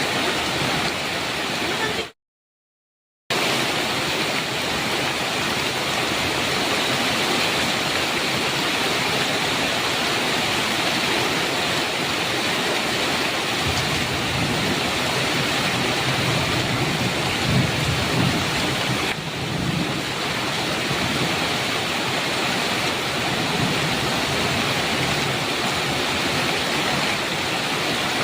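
Heavy rain falling steadily. A low rumble of thunder swells about halfway through and fades a few seconds later. The sound cuts out completely for about a second near the start.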